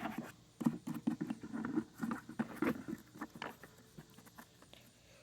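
Scrubbing a lawn mower gas tank by hand in soapy water: quick scratchy strokes in rapid succession, busy for about three seconds, then thinning out to a few faint ones.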